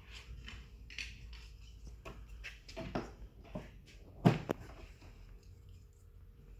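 Scattered knocks and clicks of wooden cabinet parts being handled and fitted, with one louder knock about four seconds in.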